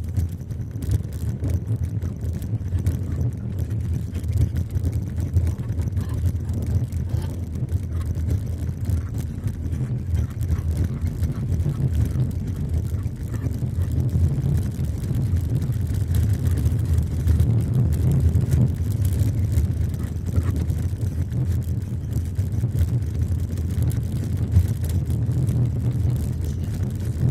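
Car driving on a dirt and gravel road, heard from inside the cabin: a steady low rumble of engine and tyres on the loose surface.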